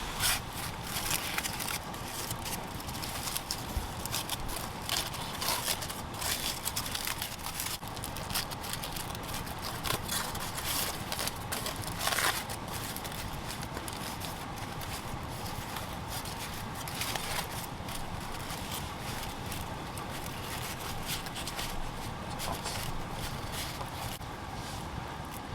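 Wood fire crackling, with irregular sharp pops and snaps throughout and a somewhat louder crack about twelve seconds in.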